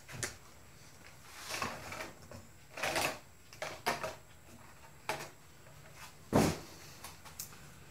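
Handling noise from a coil of thick 10-gauge stranded electrical cable being picked up off a workbench and moved about: a few short rustles and bumps, the loudest about six and a half seconds in.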